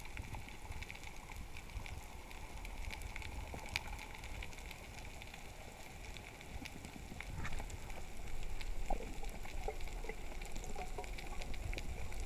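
Underwater ambience over a coral reef, heard through a camera underwater: a steady low rumble with scattered crackling clicks, a little louder in the second half.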